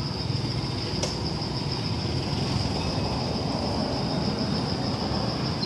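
Steady high-pitched drone of insects over a constant low rumble of background noise, with one brief click about a second in.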